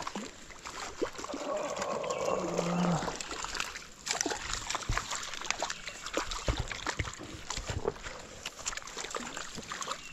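A hooked brook trout splashing at the surface of a shallow creek as it is played in and landed in a net, with many short irregular splashes and knocks from about four seconds in.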